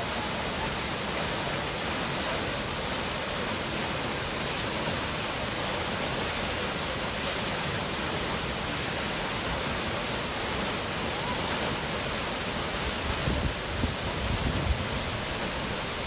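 Tulimán waterfall, with its drop of nearly 300 m, crashing down: a steady, even rush of falling water and spray. A few louder low bumps come near the end.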